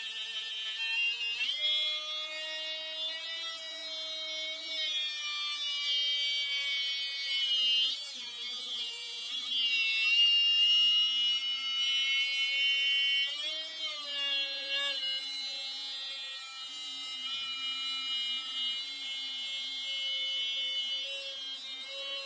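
Electric die grinder mounted on a lathe tool post, its small abrasive cut-off wheel grinding a slot into a turning steel bar: a high-pitched motor whine over a hiss of grinding. The whine sags in pitch and recovers a few times as the wheel bites.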